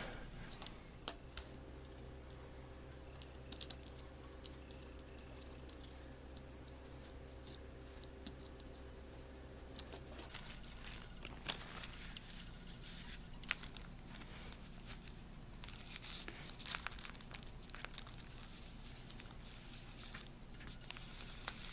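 Thin black plastic trash bag crinkling and rustling as hands press it down onto glued plastic bat-wing bones, in scattered bursts through the second half, busiest near the end. Before that only a faint steady hum with a few small clicks.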